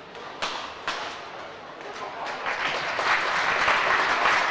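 Two sharp smacks of a badminton racket striking the shuttlecock, about half a second apart. Then crowd applause swells up from about two seconds in and keeps growing as the rally ends.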